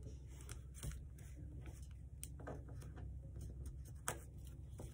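Paper being handled and creased by hand: soft rustles and small clicks, the sharpest about four seconds in.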